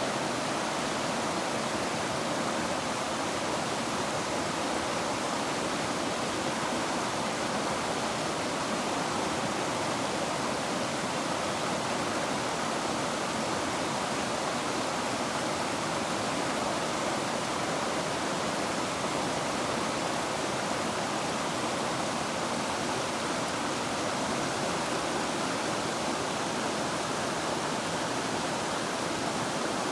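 River water rushing in a steady, unbroken wash of noise.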